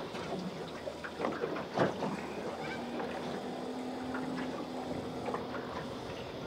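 Open-air ambience on a small boat: a steady hiss of water and light wind, with a few faint knocks and clicks, one a little louder about two seconds in.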